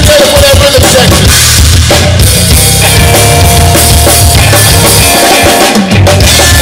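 Blues-rock trio playing live through a PA: drum kit, electric bass and electric guitar, loud and instrumental.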